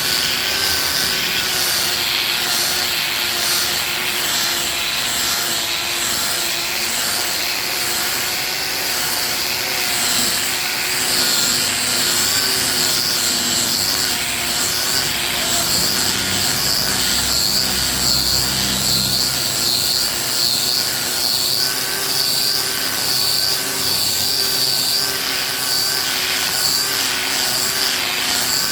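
Handheld angle grinder with a sanding disc running steadily against a solid wood chair seat: a constant motor whine with the disc's rasp on the wood swelling and easing as it is worked across the surface. A deeper rumble joins for a few seconds a little past the middle.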